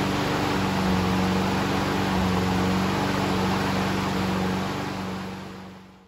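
Honda HRN216 lawn mower's GCV170 single-cylinder engine running at a steady speed, its pitch holding without hunting, then fading out near the end.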